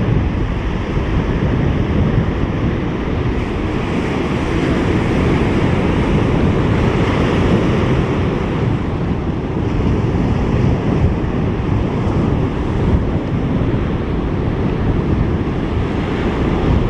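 Surf breaking and washing through the shallows, with heavy wind buffeting the microphone.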